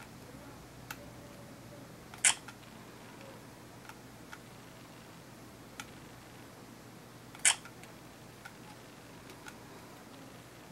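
Sony DSC-HX50V compact camera's shutter sound as two pictures are taken, two sharp clicks about five seconds apart, with faint ticks of button presses and handling between.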